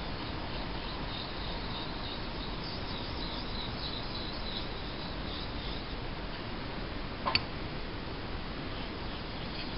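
Straight razor honed on a wet Thuringian water stone: faint scraping strokes of the blade across the stone, with a single sharp click about seven seconds in.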